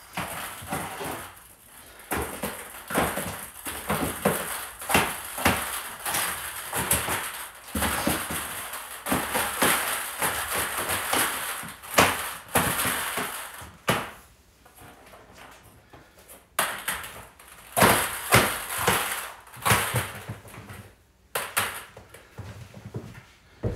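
Irregular knocks, taps and clatter in a small wooden room, with a quieter stretch a little past the middle.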